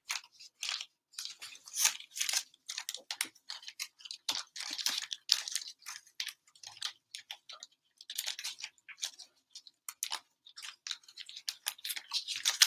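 Wrapped trading-card packs crinkling and rustling as stacks of them are handled and sorted by hand, in an irregular run of short crinkles.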